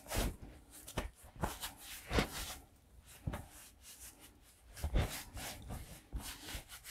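Paper towel rustling and crinkling in short irregular scrunches as hands are wiped dry with it.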